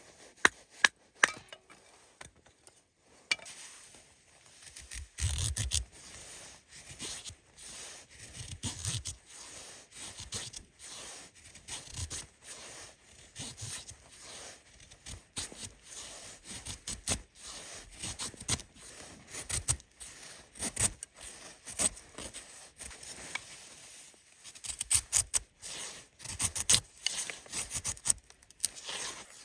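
Irregular scraping and rubbing noises, with a few sharp clicks about a second in and a busier run of scrapes near the end.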